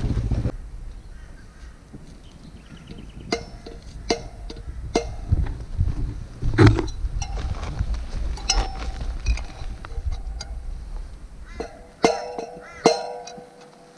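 A motorcycle engine runs for the first half second and then stops. After that come scattered sharp metallic clinks and knocks, a few seconds apart, from the tools and the pieces of a collapsed motorcycle wheel bearing being handled. Near the end come two louder clinks that ring on.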